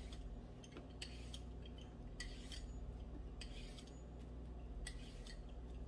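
Hand vegetable peeler scraping the skin off a cucumber in a series of short, quick strokes, each a brief, faint rasp.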